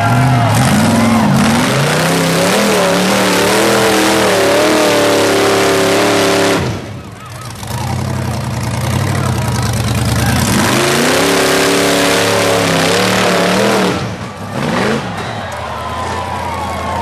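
Rock bouncer buggy's engine revving hard in repeated surges as it claws up a steep rock hill. The revs drop off briefly twice, about seven seconds in and again near fourteen seconds, then pick back up.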